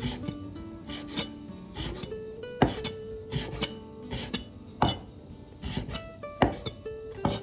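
Irregular scraping and knocking strokes of a kitchen utensil, one every half second or so, over background music with a slow, stepping melody.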